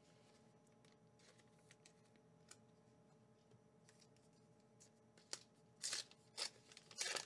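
Mostly quiet room with a faint steady hum, then several short crinkles and rustles in the last two seconds from a plastic Pokémon promo card pack being opened and its cards handled.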